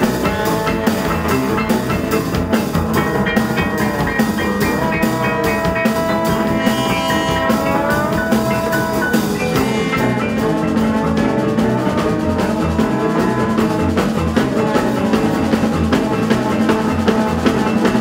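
Live band playing, with French horn and trombone over bass guitar and a drum kit keeping a steady beat. Long held notes sound in the middle, and about ten seconds in the bright cymbal wash drops away.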